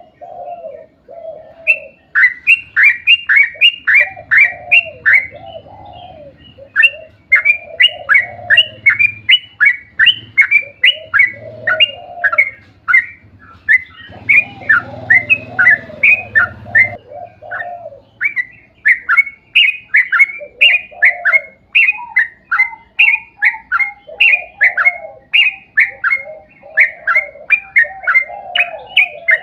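Yellow-vented bulbul (trucukan) singing a long run of rapid, sharp chirps, about three or four a second, mixed with lower bubbling warbles. This is the long rolling song that keepers play to bring other bulbuls into song.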